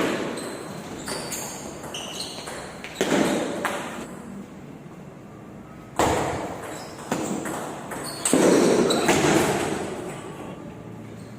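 Table tennis rally: the plastic ball clicks off paddles and the table in a quick series of short, high pings. Several louder sudden bangs break in, each ringing on and dying away over a second or so.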